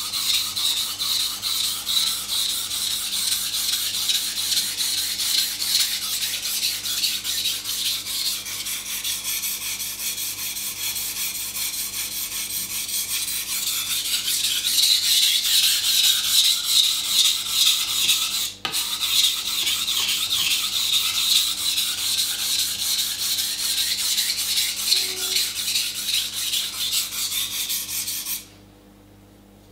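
Kitchen knife being sharpened on a wet 400-grit water stone: the steel blade scrapes back and forth over the stone in rapid strokes. There is a brief break a little past halfway, and the scraping stops suddenly near the end.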